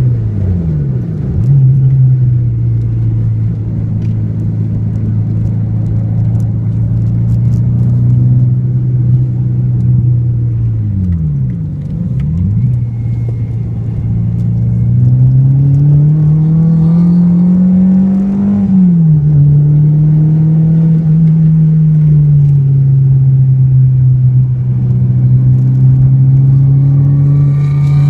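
Renault Clio 2 RS 172's 2.0-litre four-cylinder engine heard from inside the cabin while lapping a track. Its revs dip and recover briefly twice as the car brakes and changes down, then climb steadily out of a slow corner until an upshift about 19 seconds in, after which it pulls steadily again.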